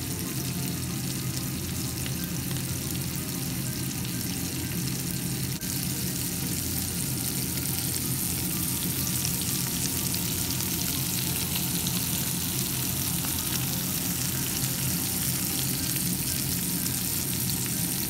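Oil sizzling and crackling steadily around whole fish shallow-frying in a nonstick pan.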